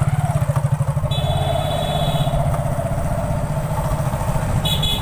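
Small vehicle engine running steadily while under way, heard from on board. A brief high tone sounds about a second in and again near the end.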